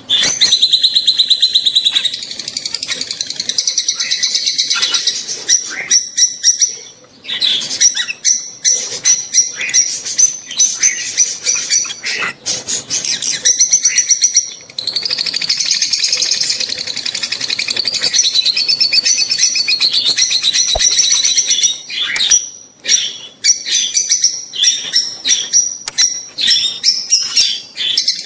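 Lovebirds, peach-faced and Fischer's, chattering in mating calls: fast, shrill chirps and trills in almost unbroken runs, dropping away briefly a few times.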